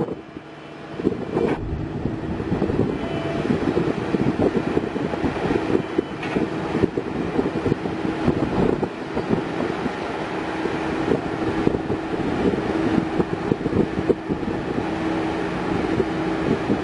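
Diesel engine of a Dynapac padfoot vibratory roller running steadily under load as the machine climbs the ramps and drives onto a self-loader truck's deck, with a steady hum over its rumble.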